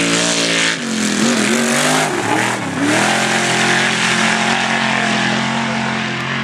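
Off-road race vehicle's engine running hard under a wash of noise. About a second in, the engine note drops and wavers for roughly two seconds, then climbs back and holds steady.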